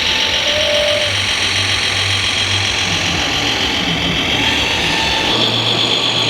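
Radio-controlled scale construction machines running: a steady high whirring with a low, engine-like hum underneath.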